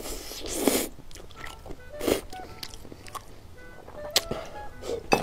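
Close-up eating sounds: a long noodle slurp that swells and cuts off near the start, then wet chewing and sharp mouth smacks as a dumpling is bitten. Soft background music plays underneath.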